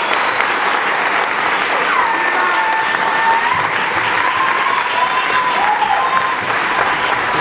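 Audience applauding steadily, with a few voices over it.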